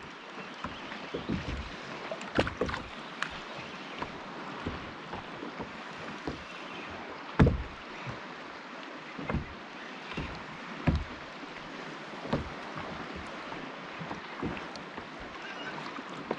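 Small waves lapping against a plastic sit-on-top kayak, with irregular hollow knocks and slaps on the hull every second or so, the loudest about seven seconds in.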